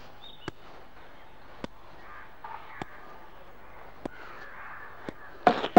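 Steady hiss of an old film soundtrack with scattered single sharp clicks, about one a second, under faint murmuring in the room. A brief loud voice sounds near the end.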